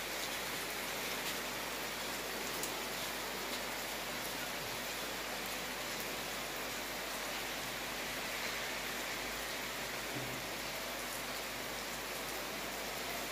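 Heavy rain pouring down in a steady even hiss, with a few faint ticks of single drops.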